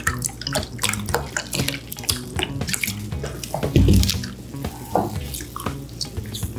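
Close-miked wet chewing and mouth clicks from someone eating, many small sticky smacks in quick succession, over soft background music.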